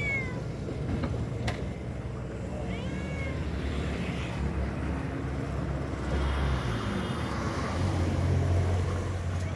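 Cat meowing: the end of one meow right at the start and one short, arching meow about three seconds in, over a steady low rumble. A single sharp click comes about a second and a half in.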